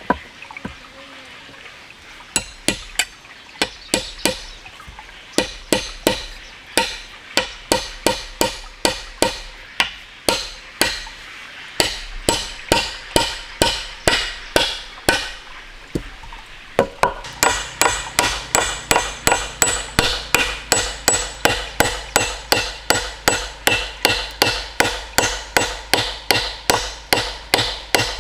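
Repeated hard strikes of a hand tool, uneven at first, then a steady run of about three blows a second with a ringing tone to each from a little past halfway.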